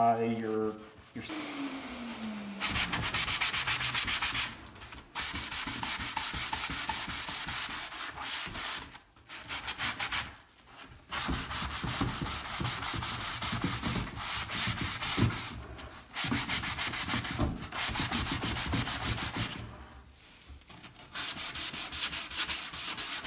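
Hand sanding an oak cabinet door with a sanding pad: quick back-and-forth abrasive strokes that stop briefly a few times. This is the scuff-sanding of the washed door before it is primed.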